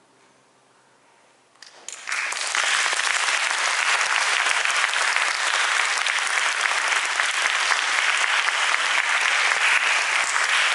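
Audience applause: near silence for the first second and a half, then a few scattered claps and full, steady applause from about two seconds in.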